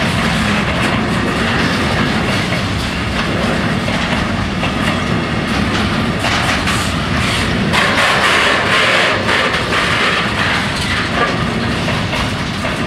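Loaded container freight train passing close by, its Sggmrs wagons' wheels rolling over the rails with a loud steady rumble and clatter. A brighter, hissing stretch runs through the middle for about three seconds.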